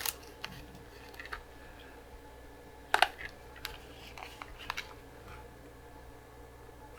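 A few sharp plastic clicks and taps from handling a Sharp PC-1501 pocket computer and pressing its keys, the loudest about three seconds in, over a faint steady hum.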